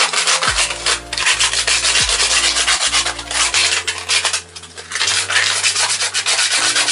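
Sandpaper rubbing by hand over the edges of holes drilled in a grey plastic pipe scoop, in quick back-and-forth strokes with a brief pause about four and a half seconds in. It is deburring, taking off the plastic burrs the drill left around the holes.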